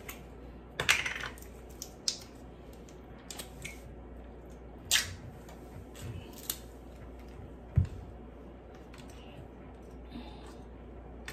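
Scattered clicks and light knocks of containers being handled, with one low thump about eight seconds in.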